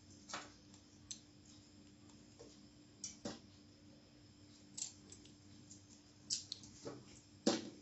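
Scattered light clicks and taps, about eight of them, the loudest near the end: dried red chillies being broken into pieces and dropped into a stainless steel mixer-grinder jar of chopped garlic and spices, with fingers knocking the jar.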